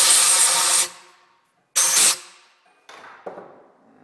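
Compressed-air blow gun giving two blasts of hissing air, a longer one and then a short one about two seconds in, blowing out a freshly tapped hole in a small brass part. Quieter handling noise and a single light knock follow.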